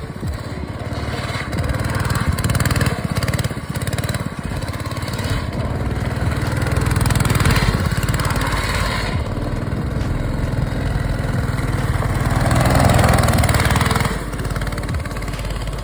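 Small petrol engine of a home-built mini go-kart running, revving up and easing off several times, loudest about thirteen seconds in before dropping back.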